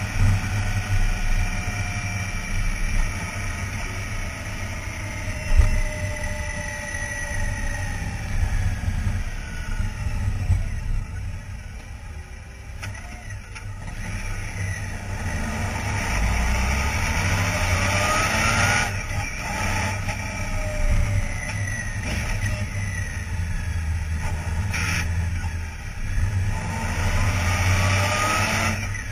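Honda Gold Wing 1800's flat-six engine and road noise at town speeds, picked up close to the bike. The engine pitch glides up and down with throttle and gear changes, climbing twice in the second half. There is a brief thump about five seconds in.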